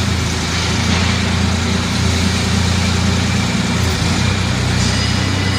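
Mini tractor's engine running steadily, with a slight change in its note about four seconds in.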